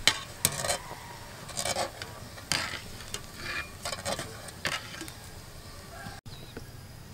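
Wire spider strainer scraping and clinking against an aluminium pot as it dips through the water and scoops, about eight short knocks and scrapes over the first five seconds.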